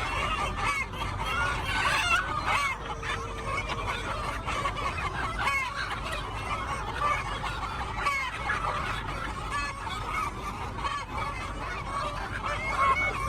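A flock of chickens clucking and calling, many short overlapping calls from several birds at once.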